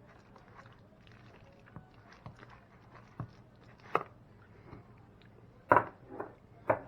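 Scattered small clicks and knocks of kitchen handling while a cream cheese filling is mixed and tasted, with a few louder knocks in the last couple of seconds over a faint steady hum.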